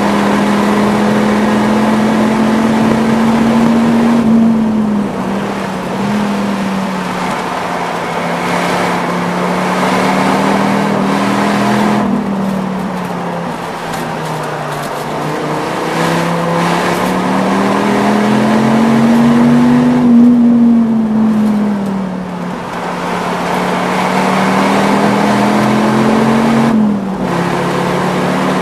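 Dodge Viper X10's V10 engine heard from inside the cabin on a hard track lap, its pitch climbing under full throttle and dropping sharply at upshifts about four seconds in and near the end. It also falls back twice mid-lap as the car slows for corners.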